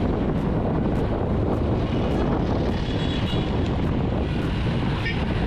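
Steady wind rush buffeting the microphone of a bicycle moving along a city street, with the low noise of car traffic close around it.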